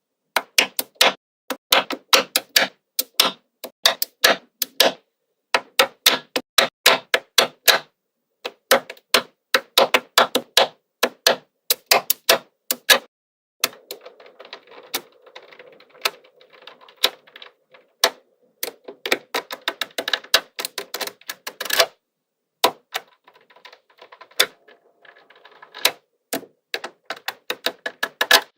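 Small magnetic balls clicking together as they snap into place, in quick runs of sharp clicks broken by short pauses.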